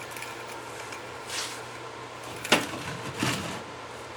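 Handling noises from setting up a support for the removed brake caliper: soft shuffling, then one sharp knock about two and a half seconds in and another softer one shortly after, over a low steady hum.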